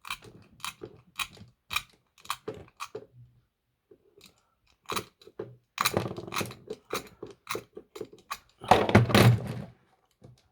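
Irregular sharp clicks and taps of small tools and parts being handled on a workbench, thicker around the middle, with a louder, rough scraping rustle of about a second near the end.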